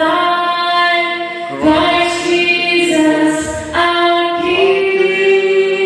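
A woman singing unaccompanied, holding long notes that step from one pitch to the next.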